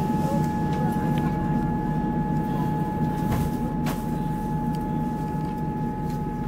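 Passenger train running along the line, heard from inside the carriage: a steady low rumble with a steady whine above it, and a couple of short clicks about halfway through.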